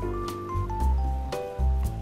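Background music: a light melody of held notes moving step by step over a repeating bass line.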